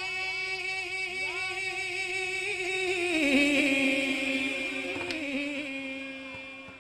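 A man singing a wordless alaap through a PA microphone: a quick run of short rising scoops on a high note, then a slide down to a lower note that is held and fades away near the end.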